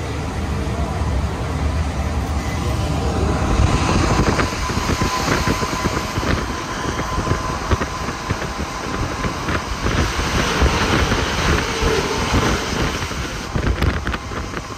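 Alstom NS-16 rubber-tyred metro train running between stations, heard inside the passenger car: a continuous rush of running noise with scattered knocks. It grows louder and brighter about four seconds in, when a thin steady whine joins it.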